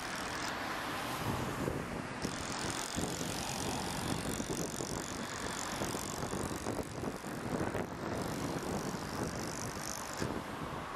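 Wind buffeting the microphone over the steady running of a Liebherr mobile crane's diesel engine during a lift. A hiss comes in about two seconds in and stops near the end.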